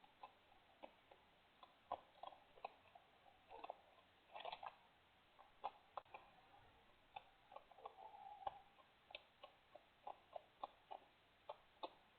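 Faint, irregular clicks and crunches of a raccoon and an opossum chewing food, a few to several a second, with a brief scraping sound about eight seconds in.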